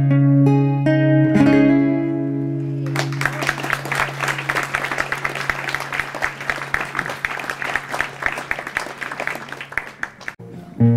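Acoustic guitar finishing a song, its last notes and low bass note ringing on, then audience applause for about seven seconds that thins out near the end. Guitar notes start again right at the end.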